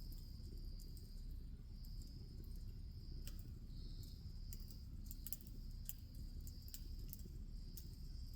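Wood fire crackling with scattered sharp pops over a low, steady rush, while an insect trills high and continuously in the background.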